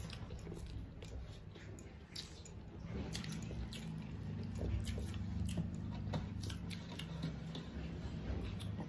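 Two people eating rice by hand: chewing and wet squishing, with fingers mixing and scraping rice on metal plates that give frequent short clicks, over a steady low hum.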